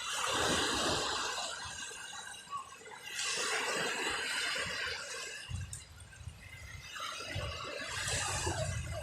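Sea waves washing in on the shore in three swells a few seconds apart. A low rumble joins about halfway through.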